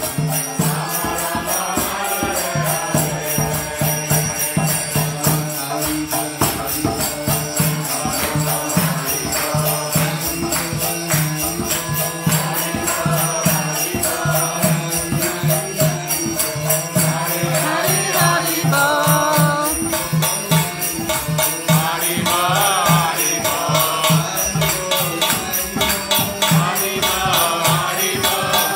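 A man singing a devotional chant in a wavering melody over a steady held low tone, with small hand cymbals struck in a steady rhythm.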